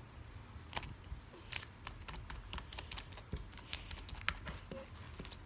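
Slime being stretched and kneaded by hand on a table, making a string of irregular sticky clicks and pops.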